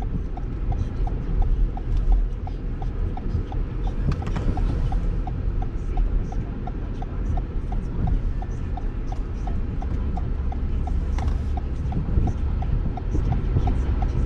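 Car turn-signal indicator ticking steadily, about three clicks a second, over the low rumble of the car's cabin on the move.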